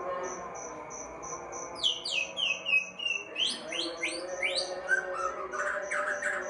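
White-rumped shama singing: a phrase of quick down-slurred whistles starting about two seconds in, then rising notes and a few lower notes. Under it runs a steady, evenly pulsed high chirping, about three pulses a second.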